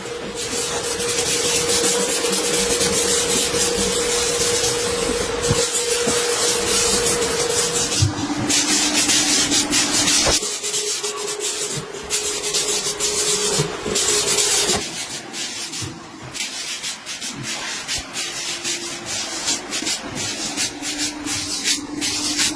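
Power buffing or grinding tool abrading tire rubber, a steady scraping with a motor note that drops and rises in pitch several times as the load changes.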